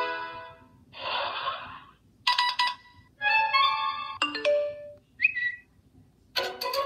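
A run of short first-generation Apple iPad alert tones played one after another with brief silent gaps: a held tone fading out, a short swoosh-like hiss, then several quick chimes and chirps of under a second each, and a new tone starting near the end.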